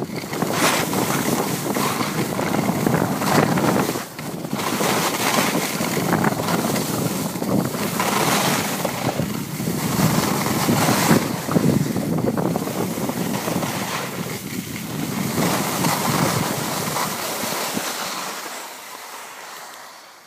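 Wind rushing over the microphone and skis scraping over packed snow on a downhill run, a loud rush that surges and eases every second or two. It fades near the end as the skier slows to a stop.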